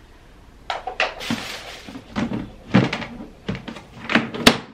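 Hard-plastic hooded cat litter box being put back together: the cover knocked against and fitted onto the tray in a string of plastic knocks and thunks, with a brief rustle about a second in and the sharpest knock near the end.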